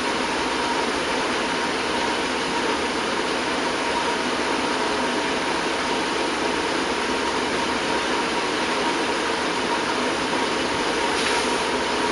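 Steady machine hum and hiss with a faint steady tone, unchanging in level; a brief soft scuff near the end.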